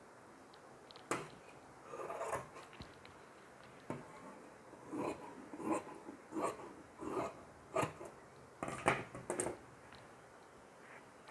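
Fabric-cutting scissors and cotton cloth being handled on a cutting table: a few light knocks and rustles, then a run of short scraping strokes, one roughly every three-quarters of a second. All of it is quiet.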